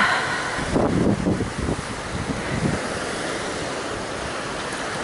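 Small sea waves washing onto a sandy beach, with wind on the microphone making a steady rushing noise.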